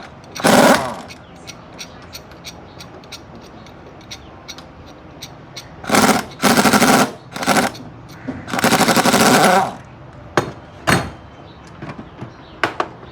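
Pneumatic impact wrench firing in short bursts of rapid hammering, the longest lasting over a second, as suspension nuts and bolts are spun off or on, with a few single metal knocks near the end.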